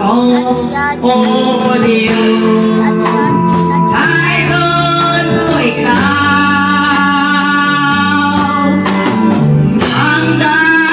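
Two women singing a worship song into microphones, amplified over a live band with electric guitar and a steady high percussion beat.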